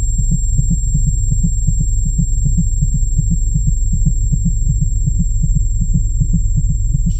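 A loud heartbeat-like sound effect: rapid, even low thumps over a deep steady hum.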